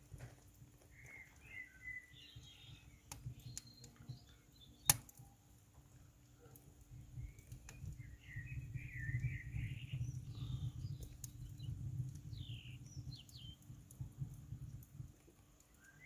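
Small birds chirping and twittering, with a few sharp crackles from the wood fire, the loudest about five seconds in, over a low rumble that swells in the second half.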